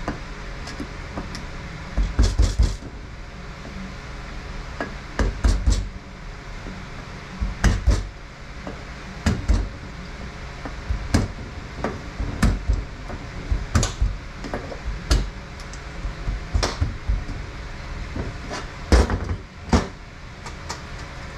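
Irregular sharp metal knocks and clanks, in short clusters every second or two, as a stuck sprag race is worked out of a Mercedes 722.6 (NAG1) automatic transmission part; the race is tight and doesn't want to come out.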